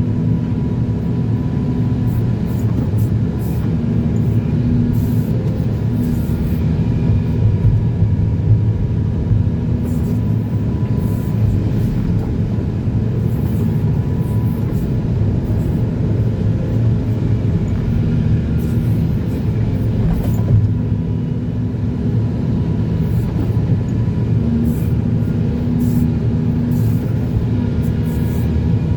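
Excavator's diesel engine running steadily, a deep, even engine sound with little change in level.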